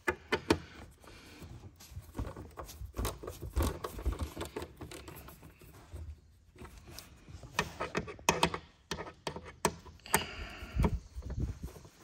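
Socket on a long extension working the 8 mm bolts out of the plastic engine cover on a 6.7L Cummins turbo diesel: scattered metal clicks, taps and knocks, busier and louder in the later part.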